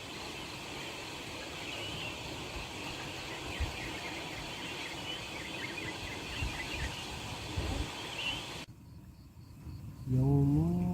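Mountain forest ambience: a steady hiss with small high chirps over it. About two thirds of the way in the sound cuts off abruptly to near quiet, and near the end music with a rising melody begins.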